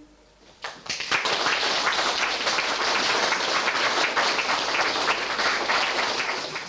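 Audience applause, breaking out about a second in and dying down near the end.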